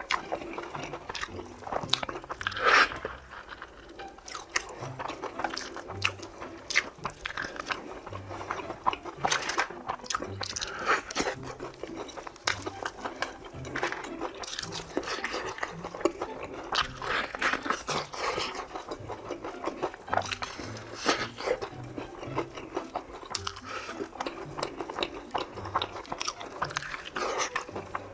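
Crispy Korean fried chicken being bitten and chewed, a run of irregular crunches and chewing sounds.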